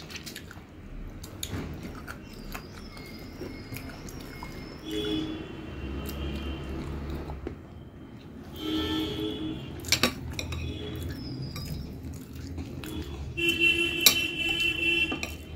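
Eating by hand from a plate of rice and curry, with a metal spoon clinking against the glass curry bowl. There are a couple of sharp clinks, the loudest near the end.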